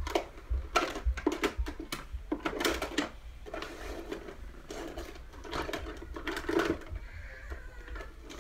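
Rummaging through makeup: irregular clicks, clatters and rustles as small items are picked up and moved about while searching for a mascara.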